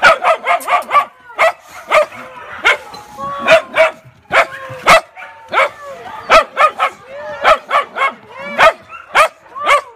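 Mixed-breed street dogs barking and yipping in a rapid run of short, sharp barks, about two or three a second.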